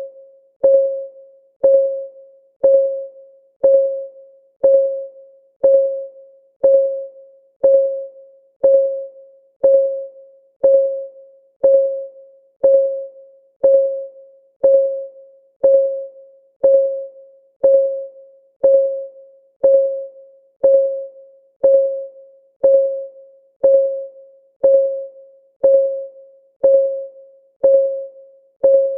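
Countdown timer's clock-tick sound effect: one short, pitched tick about every second, each with a sharp start and a brief ringing fade, in a steady, even rhythm.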